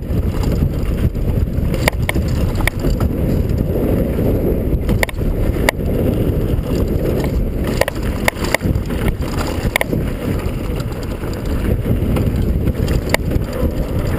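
Downhill mountain bike rolling fast over a gravel dirt trail: heavy wind buffeting on the camera microphone and tyre rumble, with scattered sharp clicks and rattles as the bike jolts over bumps.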